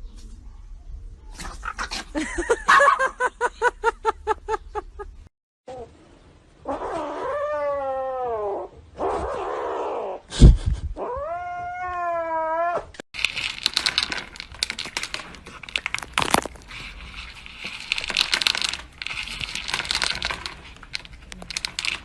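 Domestic cats yowling and meowing: a run of quick repeated cries, then two long wavering yowls with a loud thump between them. The second half is a busy stretch of scuffling noise and clicks.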